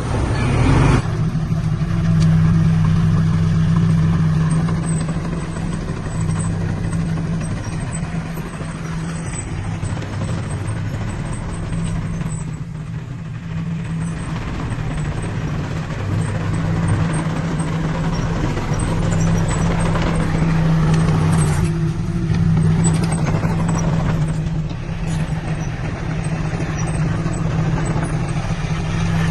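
Heavy diesel engine of earthmoving equipment running steadily: a deep, constant drone that swells and eases slightly.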